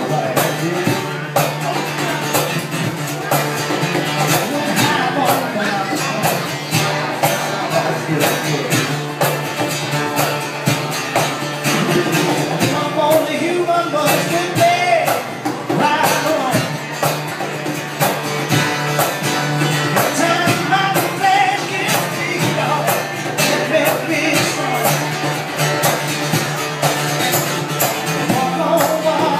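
Live blues played on a strummed acoustic guitar and a Casio Privia digital piano, with a man singing and a steady beat from percussion.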